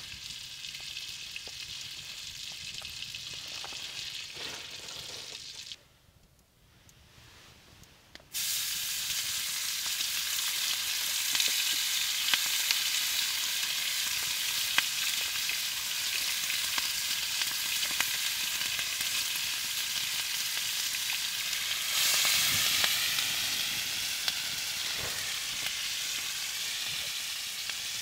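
Food sizzling and frying in a cast iron pan, with scattered pops and crackles. The sizzle fades to near quiet about six seconds in, then comes back louder two seconds later and stays so.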